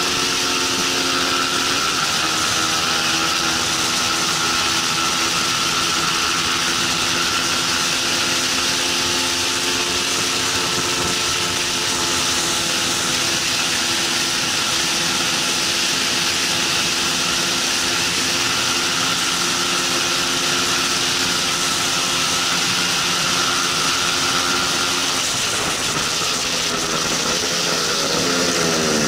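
Bajaj Pulsar 200 NS single-cylinder engine running at high revs down a straight, held at a steady pitch over loud wind rush, with a step in pitch about two seconds in as it changes gear. Near the end the revs fall away as the bike slows for the corner.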